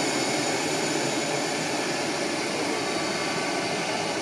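Jet engines of an Airbus A330 airliner running as it taxis: a steady rushing hiss with several high whining tones held over it.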